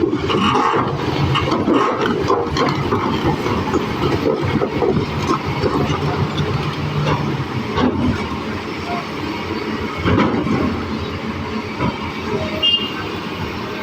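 Excavator running with a heavy, steady rumble and repeated metallic clanks and rattles.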